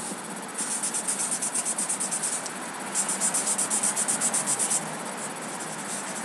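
High-pitched insect chirping, a rapid cricket-like pulsing that comes in two bouts of about two seconds each.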